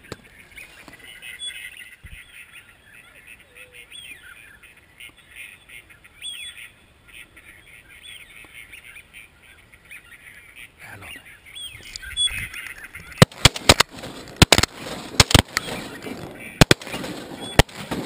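A flock of wild ducks calling, with honking and quacking, over a quiet background. In the last five seconds a run of a dozen or so loud, sharp cracks comes in, several in quick pairs.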